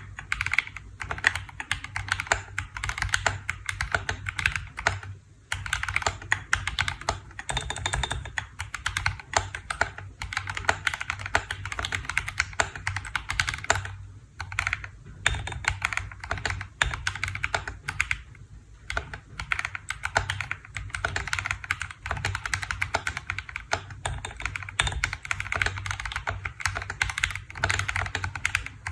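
Continuous typing on a KBDfans D65 65% mechanical keyboard: a dense clatter of keystrokes, with brief pauses about five, fourteen and eighteen seconds in.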